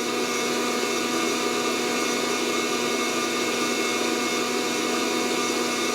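Fresh Roast SR800 fluid-bed coffee roaster running steadily, its fan blowing hot air through the tumbling beans with a constant hum. There are no cracking pops: the roast has not yet reached first crack.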